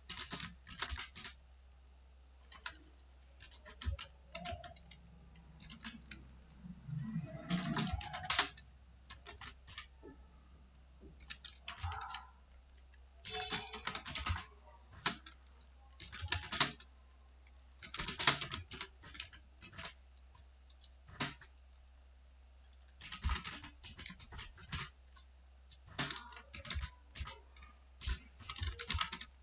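Typing on a computer keyboard: quick runs of key clicks in irregular bursts, with short pauses between them.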